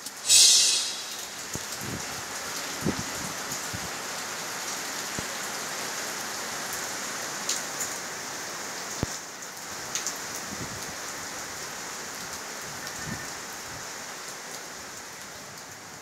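Steady rain falling, an even hiss with scattered drops ticking now and then; a brief sharp hiss right at the start.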